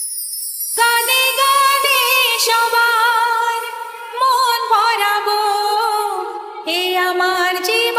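Woman singing long held notes with vibrato, with little or no accompaniment. A brief high swish sweeps down just before the singing starts, about a second in.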